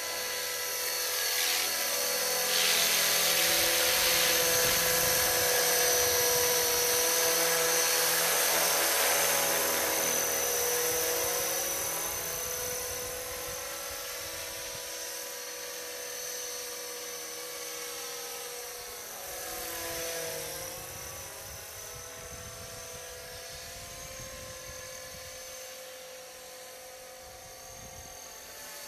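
450-size electric RC helicopter in a Bell 206 JetRanger scale body flying: the steady high whine of its motor and rotor blades. It is loudest in the first several seconds and grows fainter as it climbs away, its pitch sliding down and back up twice as it passes.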